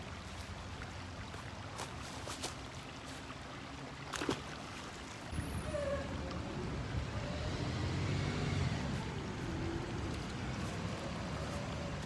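Creek water running over a rocky riffle under a steady low rumble that grows louder about five seconds in, with a few faint clicks.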